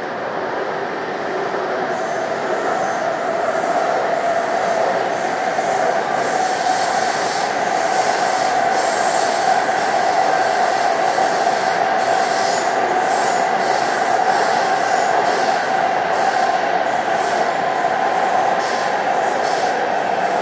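Taipei Metro C381 electric train running through a tunnel, heard from inside the car: steady running noise with a constant mid-pitched tone. It grows louder over the first several seconds as the train gathers speed, then holds steady, with a high hiss pulsing about once a second.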